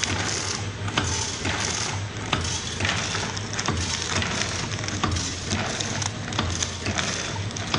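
Vertical form-fill-seal pouch packing machine running in steady cycles, about one every 0.7 s, each with clicks and a crisp rustling hiss over a low steady hum.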